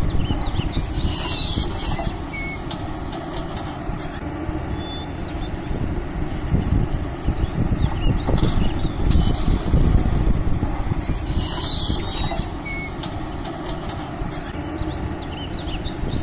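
Steady low engine-like rumble, as from a heavy vehicle such as a backhoe, with a few faint high chirps. The same stretch repeats about ten seconds later, so it is a looped sound track.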